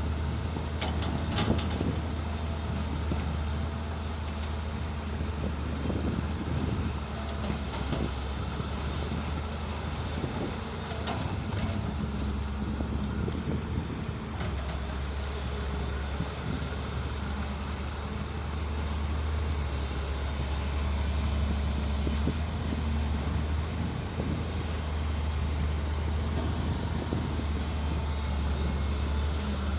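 Excavator's diesel engine running with a steady low drone that grows louder and eases off as the machine works, with a few sharp clanks about a second in.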